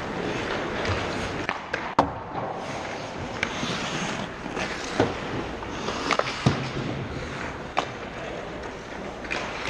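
Ice hockey skates scraping and carving across the ice, with several sharp clacks of sticks and puck, the loudest about two, five and six and a half seconds in.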